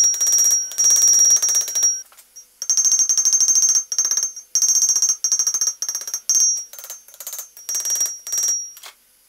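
Hand hammer striking a red-hot forged eye on a wagon box rod against a steel anvil, in quick runs of blows. The anvil rings with a bright, high tone through each run, with brief pauses about two and four seconds in, and the hammering stops just before the end.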